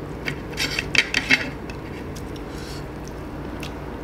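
A steel spoon and a ceramic plate clinking and clattering as the plate is handled: a quick cluster of sharp clinks in the first second and a half, loudest about a second in. A steady low hum runs underneath.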